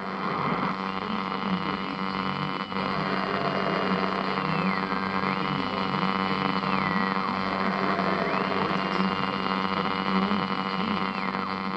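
Broken radio giving out a steady mains hum and static, with a high whistle that slides down in pitch and back up several times.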